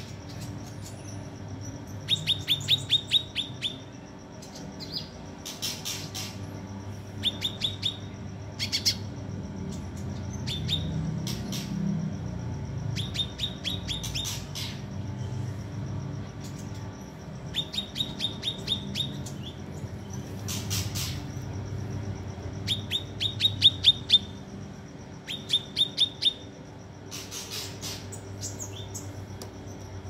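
Caged kinoi songbird singing in short, rapid trills of high chirps, repeated every few seconds, with brief sharp calls in between, over a steady low hum.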